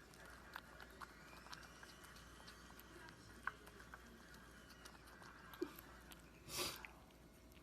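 Faint small clicks of a pet chewing food, with one short, louder rush of noise about six and a half seconds in.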